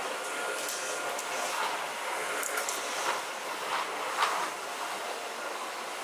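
Canister vacuum cleaner running steadily as its floor head is pushed over a laminate floor, with a few short clicks along the way.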